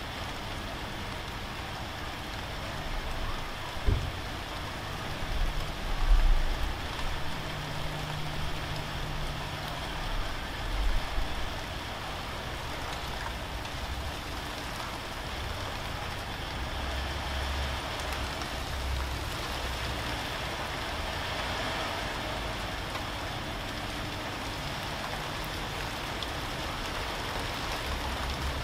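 Steady rain pattering on corrugated roof sheeting. There is a single thump about four seconds in and a few low rumbles over the next several seconds.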